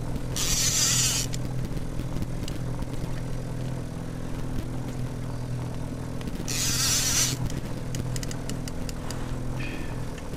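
Boat motor running steadily at trolling speed, a low even hum. Two brief hissing rushes, each about a second long, come near the start and about two-thirds through, and a few light clicks follow the second.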